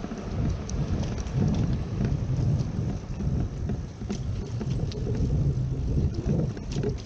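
Outdoor street noise: a loud, uneven low rumble that rises and falls, with scattered light ticks.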